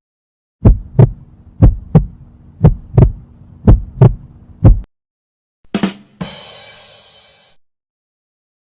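Heartbeat sound effect: a double 'lub-dub' thump about once a second, five beats, then it stops. About a second later comes a separate short effect, a hit followed by a fading noisy ring.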